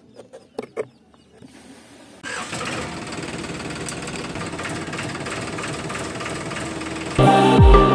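A few light clicks as the miniature garage door is handled. Then, about two seconds in, a steady engine running sound for the green toy tractor, with a fast even pulse. Loud electronic music with sliding bass notes cuts in near the end.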